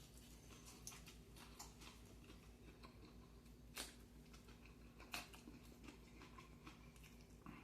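Faint chewing and mouth clicks of someone eating fried chicken, with two sharper clicks about four and five seconds in.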